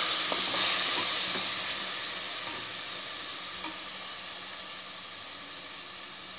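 Vegetables, soya chunks and curd sizzling in a hot pressure pan, stirred with a wooden spatula at first, with a few faint scrapes. The sizzle slowly dies down.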